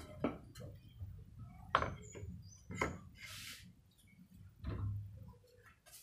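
Wooden boards knocking and clattering as they are handled and laid across a plastic tub, a few sharp wooden knocks with a short scrape in between.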